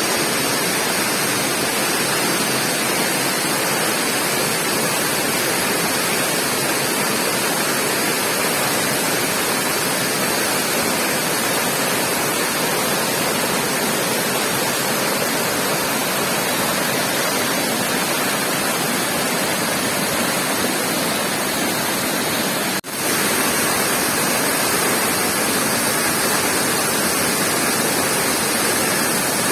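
Waterfall rushing: a steady, even hiss of falling water, with a brief break about 23 seconds in.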